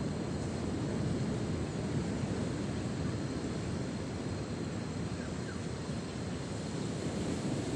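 Steady low rumbling noise of wind and sea surf on a rocky shore.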